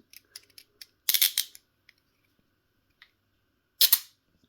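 Metal clicks from rigid handcuffs being worked with a key: two quick clusters of sharp clicks, about a second in and near the end, with faint ticks between.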